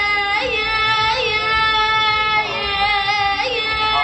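A high-pitched voice singing held notes, broken several times by quick upward swoops in pitch.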